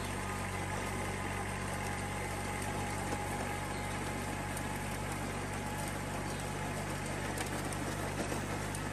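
Small Kubota diesel tractor engine running steadily while it drives a rear rotary tiller through soil.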